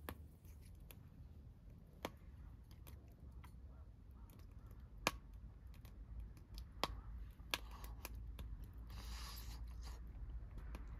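Wooden chopsticks clicking now and then against a metal can while someone eats from it, with quiet chewing. A short rush of breath comes about nine seconds in.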